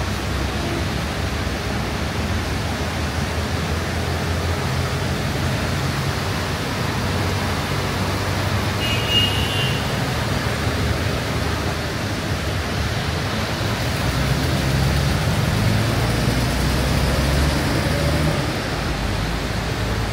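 Heavy rain with road traffic running beneath it: a steady hiss of rain over the low hum of vehicle engines that rises and shifts as vehicles pass. A short high-pitched tone sounds once about nine seconds in.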